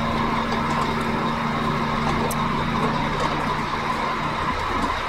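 Truck diesel engine idling steadily to charge the air brake system, with a steady hiss of air. A lower note in the hum drops out near the end.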